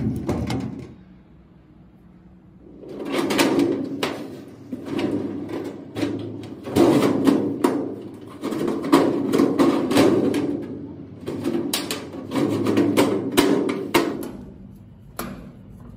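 Thin sheet-steel locker shelf scraping and knocking against the metal cabinet as it is pushed and pressed into place by hand, in about half a dozen short scrapes of a second or so each, with sharp clicks of metal on metal.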